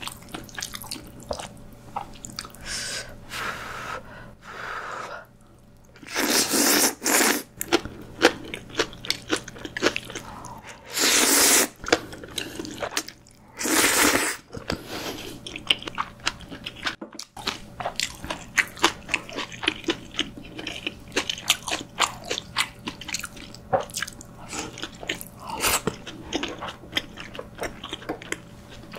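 Close-miked eating of Chapagetti black-bean noodles with green onion kimchi: noodles slurped in three loud pulls about 6, 11 and 14 seconds in, with wet chewing and crunching clicks throughout.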